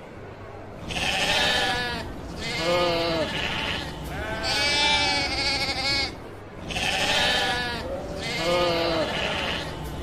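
Sheep bleating, a series of about five separate quavering bleats, each roughly a second long, over a faint steady outdoor background.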